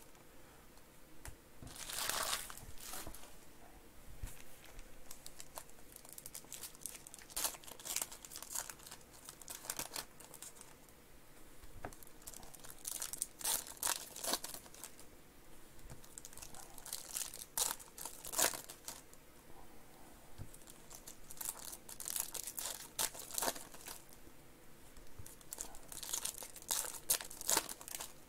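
Plastic-foil wrappers of Panini Donruss Optic basketball card packs being crinkled and torn open by hand: irregular crackling in bursts every few seconds.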